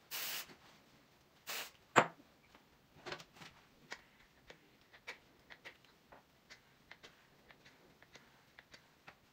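Two short hisses from an aerosol spray can on hair, then a sharp click about two seconds in, followed by faint irregular clicks as a flat iron's plates close and slide on the hair.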